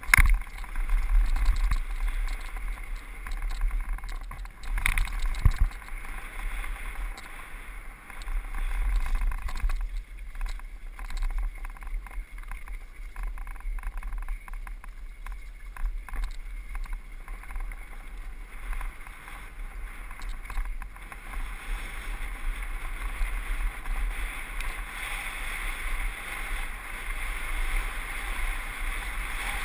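Mountain bike running fast down a dirt trail: wind buffeting the bike-mounted camera's microphone, with tyre and frame rattle and sharp knocks from bumps near the start and about five seconds in.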